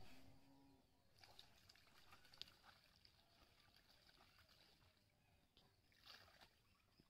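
Near silence with faint water splashing as small fish are rinsed in a bamboo sieve. It is a little louder about six seconds in, when water drains out through the sieve.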